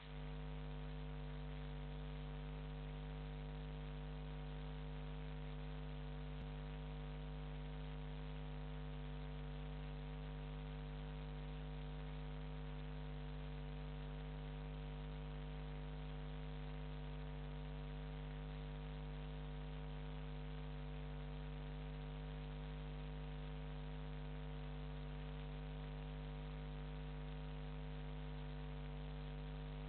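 Steady electrical mains hum with a layer of hiss, unchanging throughout.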